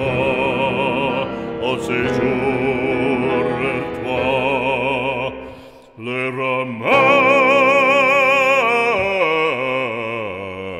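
Background music: a French religious song sung in an operatic style with strong vibrato. It dips briefly about six seconds in, then holds one long note that steps down near the end.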